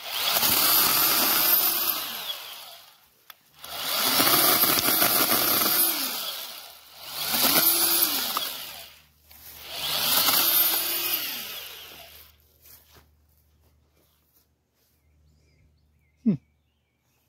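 Ryobi 18-volt brushless battery pruning chainsaw cutting small stems, run in four bursts of two to three seconds, each one speeding up and then winding down. Near the end, a single short sharp sound that falls in pitch.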